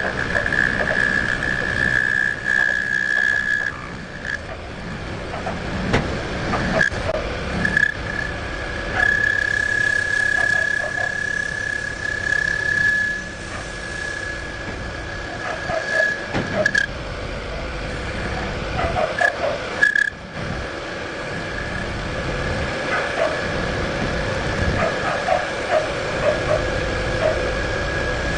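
A machine tool cutting metal: a steady high-pitched whine that drops out and comes back several times, over a rough mechanical noise with scattered clicks.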